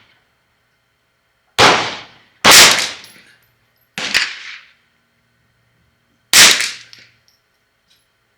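Ruger 10/22-action .22 LR semi-automatic rifle (Kidd barrel and trigger) firing a slow string of about four single shots a second or two apart, each crack followed by a short fading echo.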